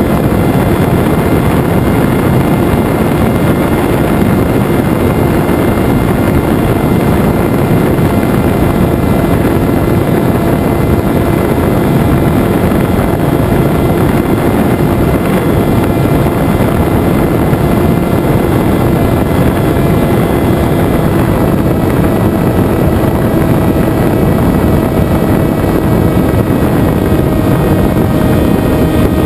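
Venturi FPV flying wing's electric motor and propeller running steadily in flight, heard from on board: a steady whine over a dense rushing noise, with the pitch dipping slightly about two-thirds of the way through.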